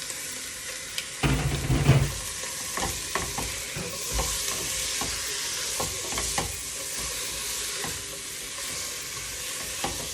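Seasoned chicken pieces sizzling in hot rendered salchichón fat in a soup pot. About a second in there is a loud burst of spattering and knocking, followed by a steady sizzle with scattered utensil clicks as the pieces are stirred.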